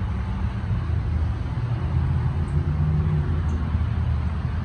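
Steady road-traffic rumble, with the low drone of vehicle engines and tyres passing on a highway.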